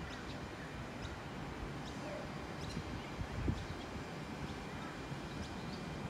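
Outdoor evening ambience: a steady low background hum with faint, short bird chirps repeating every second or so, and one soft low knock about three and a half seconds in.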